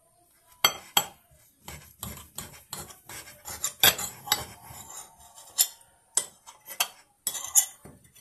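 Table knife sawing through a sandwich on a ceramic plate: a run of short scraping strokes, with sharp clicks of the blade against the plate, beginning about half a second in.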